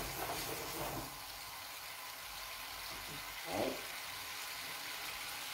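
Turkey rolls simmering in their sauce in a frying pan, a steady sizzle and hiss. A short louder sound cuts in about three and a half seconds in.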